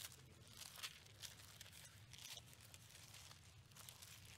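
Faint papery rustling as the thin pages of a Bible are flipped, a quick series of short swishes, a few each second, while the reader looks for a passage.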